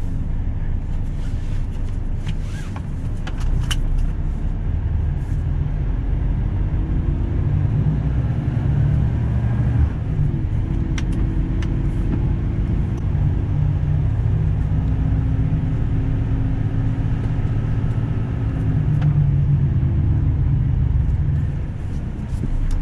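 Mercedes-Benz Actros truck's diesel engine running while driving, heard from inside the cab; the engine note rises and falls a little, with a few light clicks in the first seconds.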